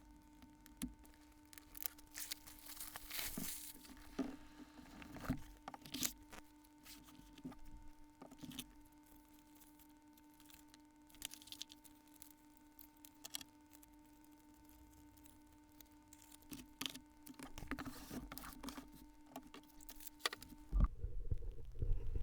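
Close handling of paper or packaging: crinkling and a short tearing rustle, with scattered light taps and clicks, over a faint steady electrical hum. Near the end the background switches abruptly to a low steady rumble.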